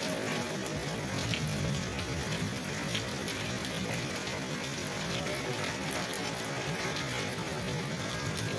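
Steady rain: an even hiss with scattered ticks of drops.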